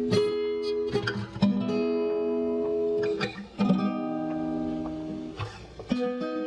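Guitar music: plucked and strummed chords, each change struck sharply and left to ring for a second or so.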